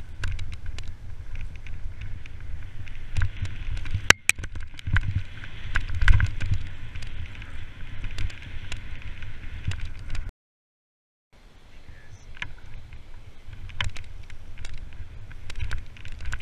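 Mountain bike riding fast down a rough dirt trail, heard through an action camera on the bike or rider: wind rumbling on the microphone with rattles and clicks of the bike over the ground, and a sharp knock about four seconds in. The sound cuts out for about a second near the middle, then the same riding noise resumes.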